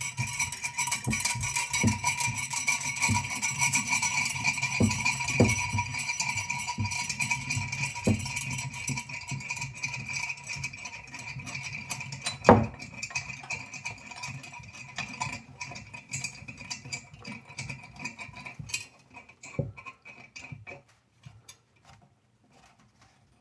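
Background music with percussion, fading out over the last few seconds. A single sharp knock about halfway through.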